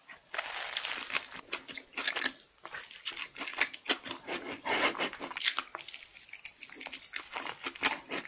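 Close-miked ASMR eating: crunchy bites into crispy fried food with wet chewing and crackling between bites.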